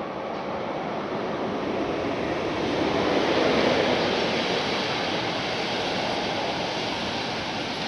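A train rolling past on the tracks close below, a rushing noise that swells to its loudest about three to four seconds in and then runs on steadily as the coaches go by.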